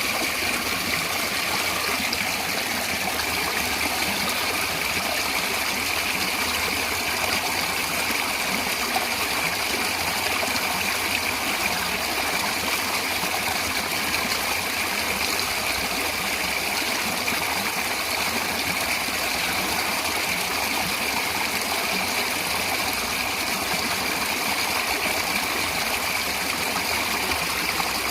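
Natural running water flowing steadily, an even, unbroken rush with no changes.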